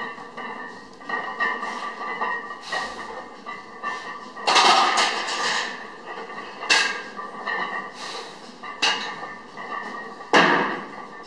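Heavy barbell bench press set of 315 lb: sharp breathy bursts of effort about every two seconds, one for each rep, with light metal clinks from the loaded bar and rack.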